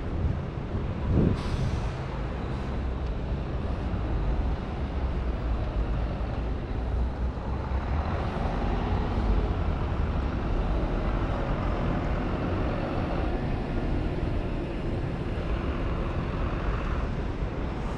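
City street traffic with a heavy vehicle's engine running close by, and a short hiss about a second in.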